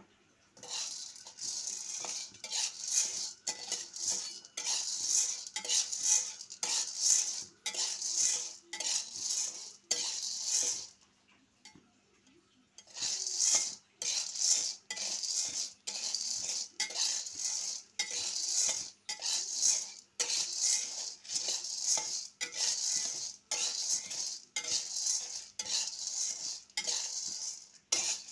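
Raw green coffee beans being stirred in a metal wok with a spatula while pan-roasting: rhythmic scraping strokes, about two a second, with the beans rattling and sliding against the pan. The stirring pauses for about two seconds near the middle, then carries on.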